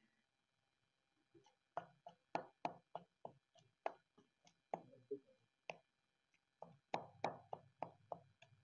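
Tall wooden pestle pounding fresh coriander into a wet chutney paste in a stone mortar: a run of short thuds, about three a second, starting about two seconds in, with a brief pause near the middle before a quicker run.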